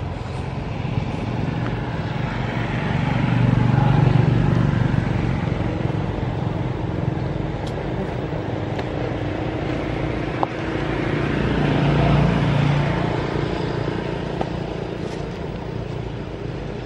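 Road traffic going by: a steady rumble that swells as vehicles pass, loudest about four seconds in and again about twelve seconds in, with a single sharp click shortly after ten seconds.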